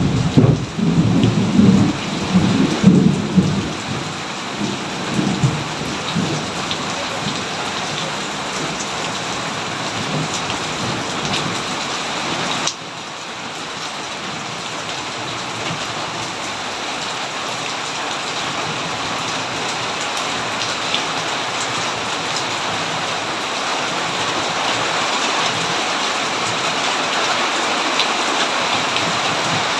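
Heavy rain falling steadily, with a rumble of thunder in the first few seconds that dies away by about six seconds in. A little before halfway the rain drops suddenly in level, then slowly builds again.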